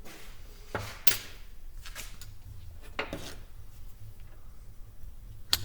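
Small metal parts of a truck air dryer's valve assembly, its washers and spring, clinking and knocking as they are taken out by hand: five or so separate sharp clicks, the sharpest near the end, over a low steady hum.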